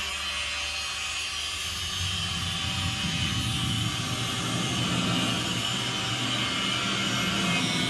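Handheld angle grinder running as it cuts metal, a steady whine with a rough low rumble that comes in about two seconds in, heard through the room's speakers from a projected safety video.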